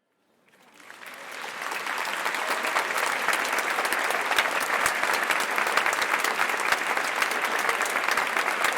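Crowd applauding: many people clapping, fading in over the first two seconds and then steady.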